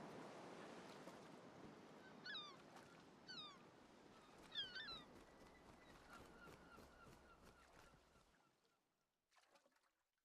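Three faint bird-like calls about a second apart, the third the loudest, over a soft background hiss that fades out near the end.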